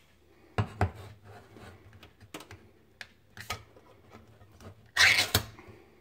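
Metal food cans being handled: several sharp clicks and knocks, then a louder scraping rasp lasting about half a second, about five seconds in.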